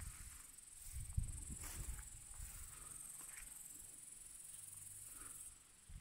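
Faint, steady, high-pitched chirring of insects in the grass, which stops about five and a half seconds in. A few low rumbles on the microphone come in the first two seconds.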